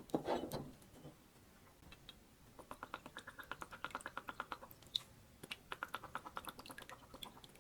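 Worcestershire sauce glugging out of its bottle in two runs of quick, faint gurgles, about a second apart.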